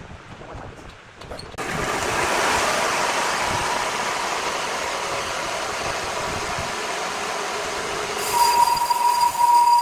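Large horizontal band sawmill. About a second and a half in, a loud, steady rushing noise comes on suddenly. Near the end, a high whistling whine grows loud over it as the blade runs across the log.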